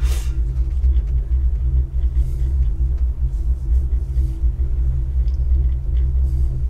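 Steady low rumble of a moving vehicle, with a faint steady hum above it.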